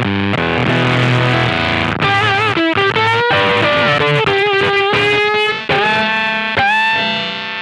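Electric guitar played through an unrepaired Mosky BC108 Fuzz Face clone fuzz pedal running at 12 volts, its tone heavily distorted. A held chord gives way, about two seconds in, to single sustained notes with bends and vibrato. The player says the cleanup is terrible and that it sounds broken, which he puts down to a bias fault in the circuit.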